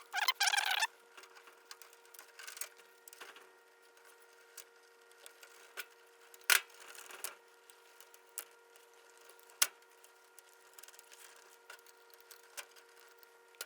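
Plastic wire connectors and clips being unplugged from an electric dryer's timer: scattered small clicks and snaps with light handling between, a few sharp snaps standing out, the loudest just after the start.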